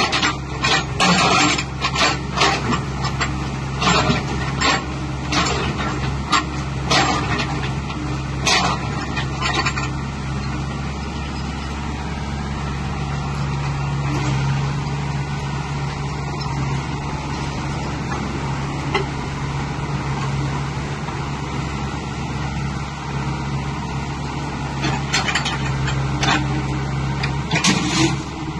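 SANY mini excavator's diesel engine running steadily under load while the boom and bucket are worked. Many sharp knocks sound through the first ten seconds and again near the end.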